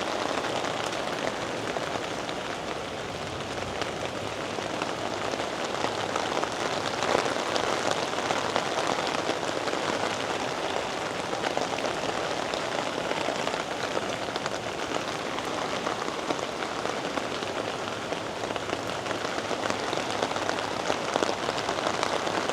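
Steady rain falling on a garden, an even, unbroken hiss of drops.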